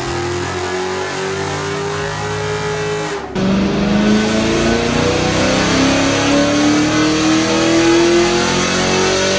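Rebuilt 3.6L V6 of a 2010 Camaro accelerating hard on a chassis dyno, its pitch climbing steadily as the revs rise. The sound cuts off abruptly about three seconds in, and a second pull starts lower and climbs steadily again toward redline.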